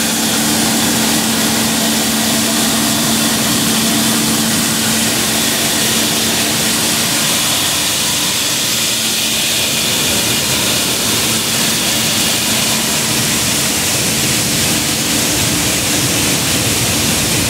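Coffee-processing machinery running steadily: a constant motor hum under a loud rushing hiss of green coffee beans moving over vibrating screen decks and chutes.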